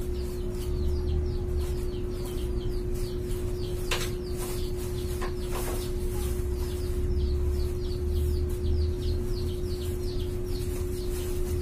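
Small birds chirping over and over in short, high, falling notes, over a steady low hum and a low rumble, with a couple of sharp clicks in the middle.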